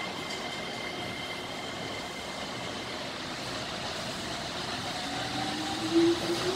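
Tokyo Monorail 10000 series train pulling away from the platform: a steady running rumble, with its motor whine rising in pitch over the last second and a half as it gathers speed.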